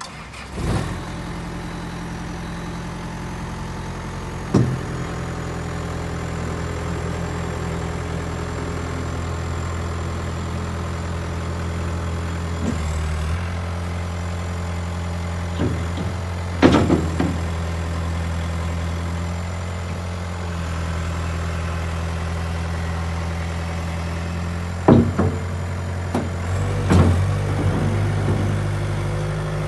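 CAT 242B3 skid steer's diesel engine idling steadily after it comes in about a second in, with several sharp clunks, and a slight change in its note near the end.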